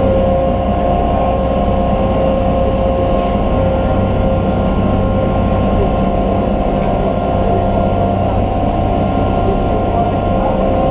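Resort launch boat's engine running steadily under way, heard on board: a constant low drone with a steady hum at several pitches over rushing noise.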